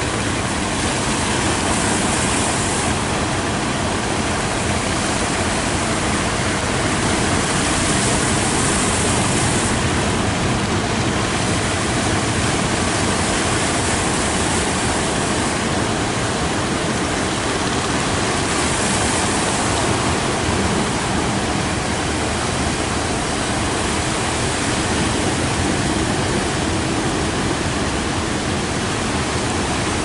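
Rough surf: waves breaking and churning in a steady, unbroken rush of water.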